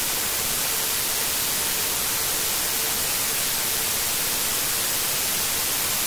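Loud, steady static hiss like white noise, the sound of a corrupted stretch of the recording. It starts and ends abruptly.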